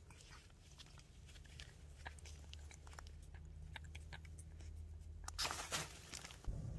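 A stray cat licking and smacking at a lickable treat paste: faint, scattered small wet clicks, with a short burst of rustling about five and a half seconds in.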